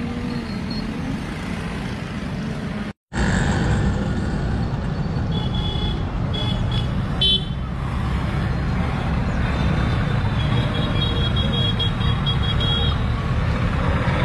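Busy street traffic noise with high-pitched vehicle horns tooting, several short toots in the middle and a longer run near the end. The sound cuts out for an instant about three seconds in.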